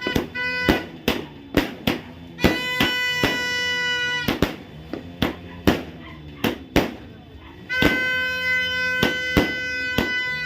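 Firecrackers going off in an irregular string of sharp bangs, about two a second. A steady musical tone sounds over them twice, each time held for about two seconds.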